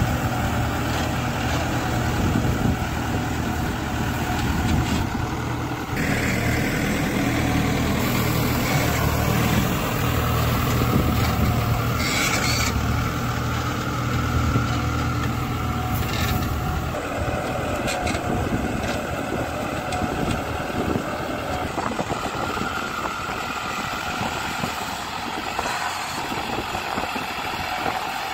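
New Holland 9010 tractor's diesel engine running steadily under load while pulling a five-tyne cultivator through field stubble, a continuous low engine hum with noise from the work above it.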